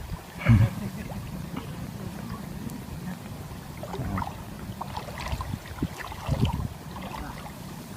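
Wind rumbling on the microphone, with a short thump about half a second in and a few faint knocks after it.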